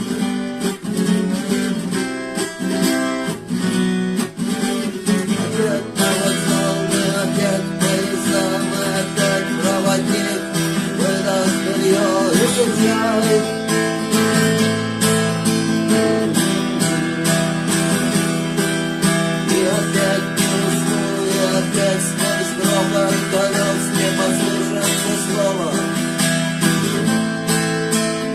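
Electro-acoustic guitar strummed in a steady rock rhythm, an instrumental passage between sung lines. The sound grows fuller about six seconds in.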